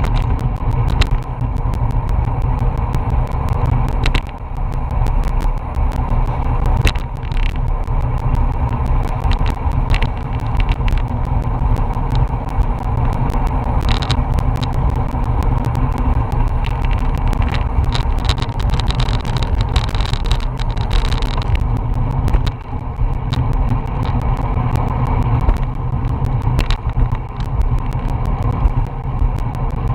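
Wind rushing over the bike-mounted action camera's microphone and tyres humming on the asphalt as a road bike rides at about 20 mph. It is a loud, steady, low rumble, broken by frequent short clicks and knocks.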